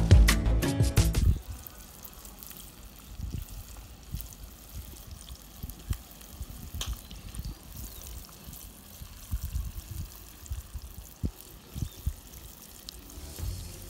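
Fish pieces frying in hot fat in a cast-iron skillet over a wood fire: a steady, soft sizzle, with gusts of wind buffeting the microphone. Music plays for about the first second.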